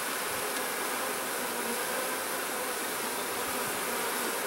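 Honeybees buzzing steadily around an open hive box.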